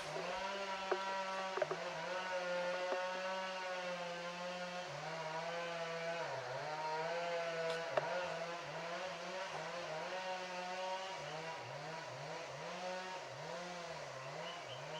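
Chainsaw in the background, held at high revs, its pitch dipping again and again as the chain bogs down in the cut and then recovering.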